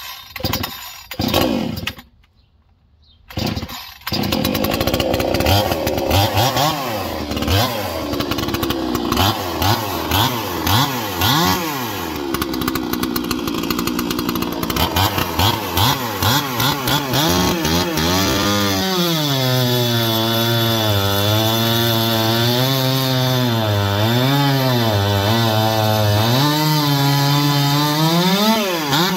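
A 45cc Proyama two-stroke gas chainsaw is pull-started with a few pulls and fires about four seconds in. It is revved in repeated blips, then from about halfway runs into a log, its pitch lower and wavering under the cutting load.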